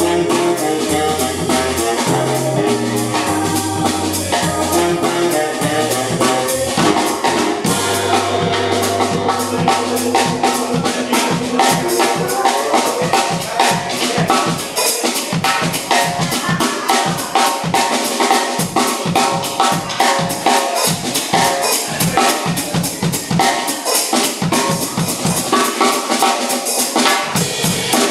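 Live funk trio of baritone saxophone, drum kit and electric guitar. The baritone sax plays a low riff for roughly the first half, then drops out, and the drums carry on with a busy, fast beat.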